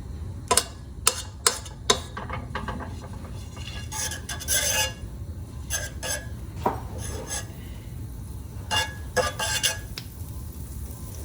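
Metal pan and utensils clattering and clinking in kitchen handling, with several sharp knocks in the first two seconds and scattered knocks and scrapes after that.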